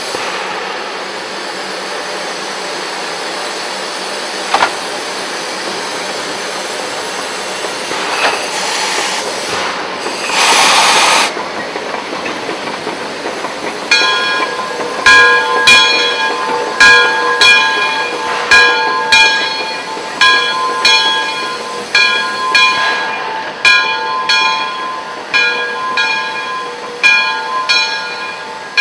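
Shay geared steam locomotive hissing steam, with a loud blast of steam about ten seconds in. From about halfway, a bell rings steadily, about one strike a second, each strike fading away.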